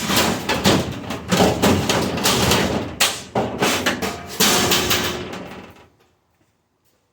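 Stainless steel dishwasher panels and parts banging and clattering as the machine is pulled apart for scrap, in a fast run of metal knocks. A heavier bang about four and a half seconds in rings and dies away, and the last second is near silence.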